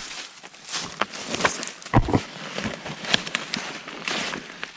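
Footsteps crunching through dry leaves, pine needles and twigs, with brush swishing and crackling against clothing as someone pushes through thick woods. There is a heavier thump about two seconds in.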